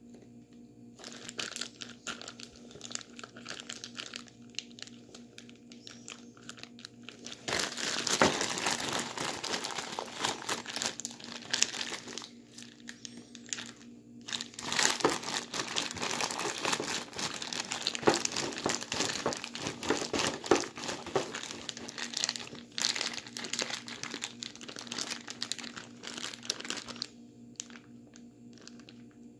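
Plastic bag holding ice and salt crinkling and rustling as it is handled and shaken to freeze a drink into slush. It starts about a second in, grows busier and louder about a quarter of the way through, and eases off near the end.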